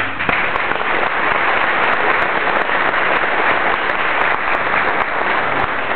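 Audience applauding: dense, steady clapping that starts suddenly and holds throughout.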